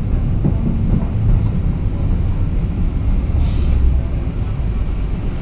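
A Moderus Beta MF15 AC tram running along the track, with a steady low rumble of wheels and running gear. A brief hiss comes about three and a half seconds in.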